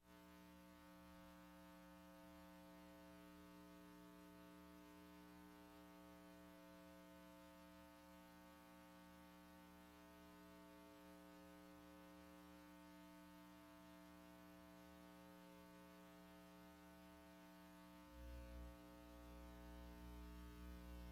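Faint steady electrical mains hum and buzz from VHS tape playback, with no programme sound yet. About eighteen seconds in a low bump comes, after which a low rumble joins the hum.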